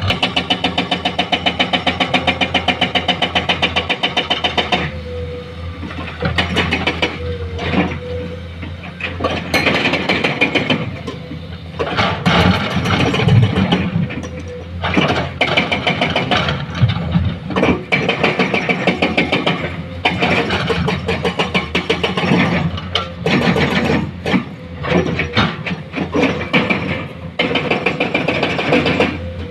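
Heavy diesel construction machinery running, with a fast even engine pulse for the first few seconds, then many irregular clanks and knocks over the engine sound.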